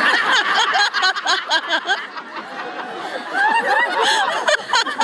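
Audience laughing, many voices at once, with a woman laughing among them.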